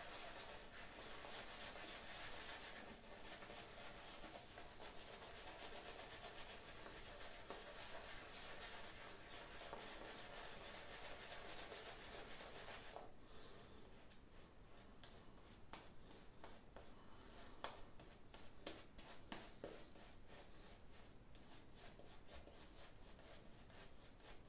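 Omega 10065 shaving brush working lather over a face, faint. It is a soft, continuous swishing for about the first half, then separate quick brush strokes that come faster toward the end.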